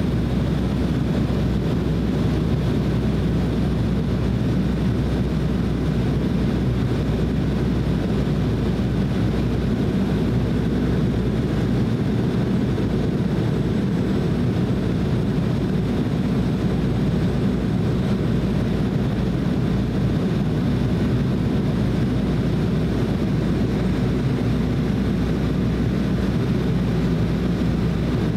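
Cabin noise inside an Embraer E190 airliner in flight: a steady, deep drone of its turbofan engines and the airflow, unchanging throughout.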